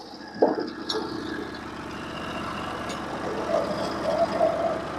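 Portable band sawmill running steadily with its band cutting through white pine, with a sharp knock about half a second in.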